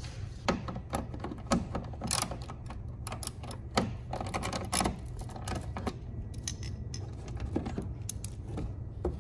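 Irregular clicks and taps of a metal screwdriver against plastic fasteners as a car's plastic mud flap is worked loose from the wheel well, over a steady low hum.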